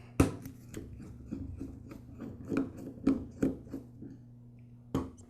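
Screwdriver working the small pilot jet cap screw out of a lawn mower carburetor body: irregular light metal clicks and scrapes, with a sharper click just after the start and another near the end.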